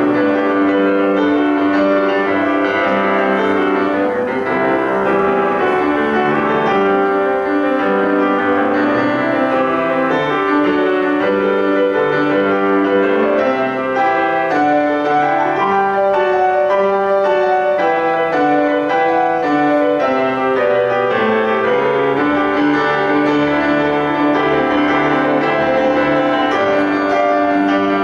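Solo piano playing a continuous, flowing stream of notes without a pause.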